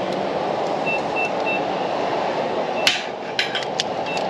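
Petrol-pump keypad beeping as buttons are pressed, three short beeps about a second in and another near the end, over a steady hum. A few sharp clacks come about three seconds in.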